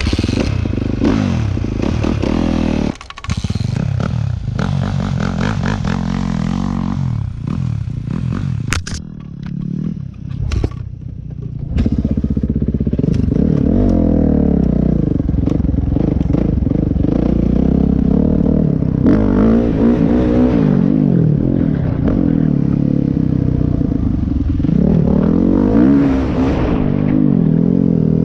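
Dirt bike engine ridden hard, its pitch repeatedly climbing and dropping with throttle and gear changes, with rattling knocks from the bike over the first several seconds. It drops quieter for a few seconds about a third of the way in, then runs loud again.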